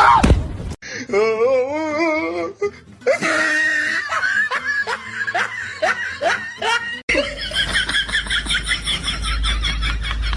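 A person laughing in a run of short repeated bursts. After a sudden cut comes a rhythmic rasping, about four strokes a second.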